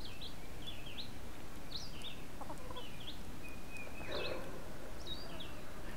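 Young chicks peeping: many short, high cheeps that rise and fall, a few every second, with a lower chicken call about four seconds in.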